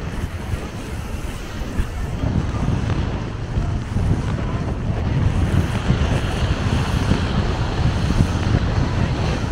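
Wind buffeting the microphone with a low, uneven rumble, over a steady rush of surf.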